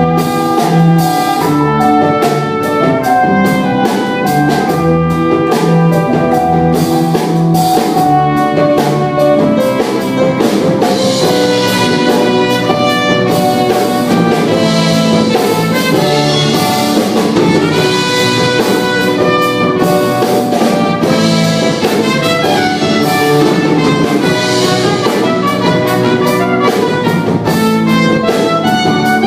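Instrumental break of a band's song, with brass playing the melody over drum kit and accompaniment.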